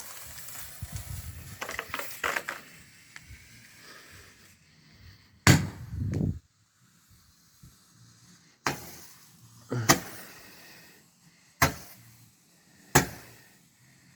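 Consumer Roman candle firing: a fuse hissing and sputtering fades over the first few seconds, then five sharp pops spaced out irregularly as the shots launch.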